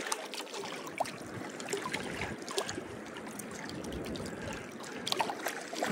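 Small waves lapping and trickling against a rocky lake shore, with scattered small splashes.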